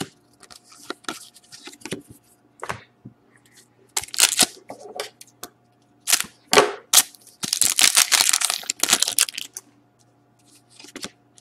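Wrapper of an Upper Deck Artifacts hockey card pack crinkling as it is handled and snipped open with scissors: short crackling bursts about four seconds in and again a little after six, then a longer, louder run of crinkling from about seven and a half to nine and a half seconds as the pack is opened.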